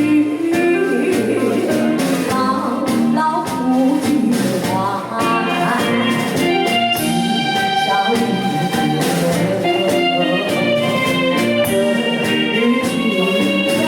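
Instrumental backing music with guitar and a regular drum beat, playing continuously.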